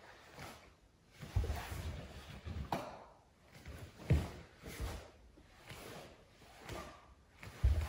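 Bare feet stepping and thudding on a sports-hall floor, four separate thumps, amid the soft swish and rustle of a cotton gi and wooden nunchaku moving through a kata.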